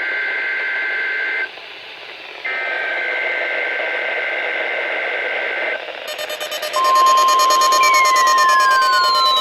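NOAA Weather Radio emergency alert coming in over a radio receiver: the rapid two-tone data warble of the SAME header, ending about a second and a half in, then a second burst after a one-second pause. About seven seconds in the long steady single-pitch 1050 Hz warning alarm tone begins, with falling tones sliding over it near the end.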